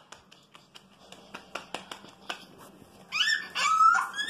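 Light, regular taps of hands pressing cardboard floor-puzzle pieces against a tiled floor, about three a second. About three seconds in, a louder, high-pitched rising squeal.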